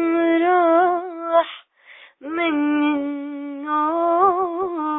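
A single voice sings unaccompanied in long held notes, without words. It breaks for a quick breath about a second and a half in, then wavers in a melismatic ornament near the end.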